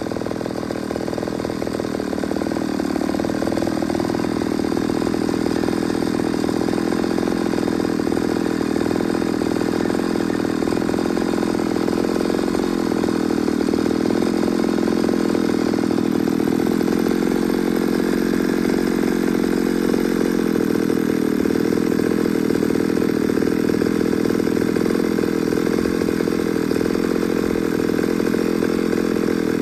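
Ported Pioneer two-stroke chainsaw running steadily at high revs throughout, its pitch shifting only slightly.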